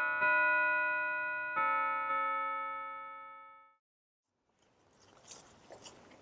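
A few soft, struck, bell-like keyboard notes that ring and fade away, dying out by about four seconds in. After a short silence, faint open-air background with a few light clicks and rustles from hands working in a flower planter near the end.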